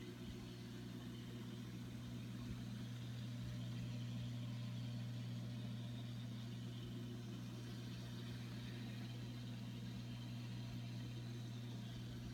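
Reef aquarium equipment running: a steady low pump hum with a soft hiss of water circulation above it.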